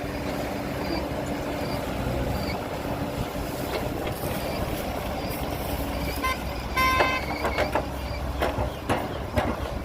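Heavy diesel construction machinery running steadily, with scattered knocks and a short high-pitched tone about seven seconds in.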